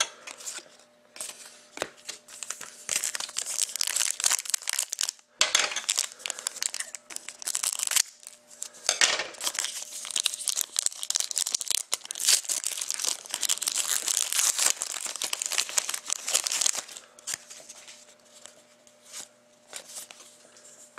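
Trading card pack wrappers being torn open and crinkled, with cards handled in between.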